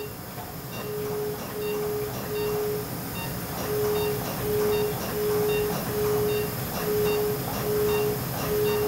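CO2 surgical laser sounding its emission tone: a run of steady low beeps, each about half a second long and coming about one and a half a second, with a short pause about three seconds in. Each beep marks the laser firing a pulse. A steady hiss runs underneath.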